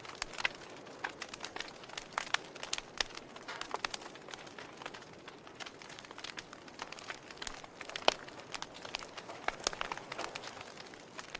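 Fire burning, with irregular sharp crackles and pops over a soft steady hiss; one pop about eight seconds in is louder than the rest.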